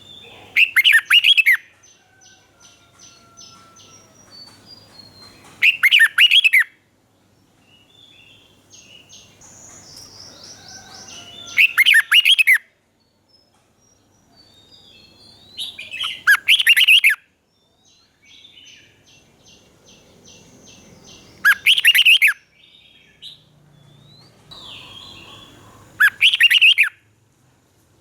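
Red-whiskered bulbul singing: six loud, short, liquid song phrases, each under a second, repeated about every five seconds. Fainter quick chattering notes fill the gaps.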